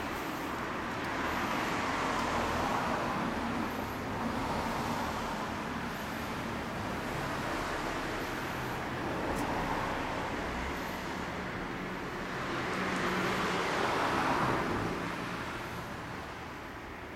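Road traffic going by: a steady hum of cars, swelling as one passes about two seconds in and again, louder, about thirteen seconds in, then easing off near the end.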